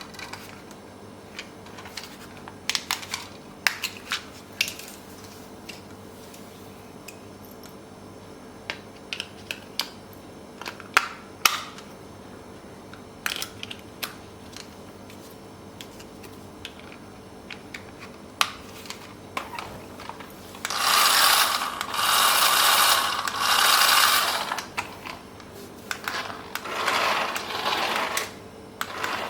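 Scattered plastic clicks and rattles of a toy RC car and its parts being handled, then two stretches of louder rustling and scraping in the last third.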